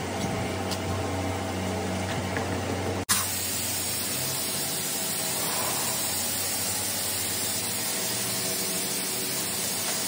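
Steady hiss with a low hum of workshop background noise. It drops out for an instant about three seconds in and returns as a brighter, steadier hiss.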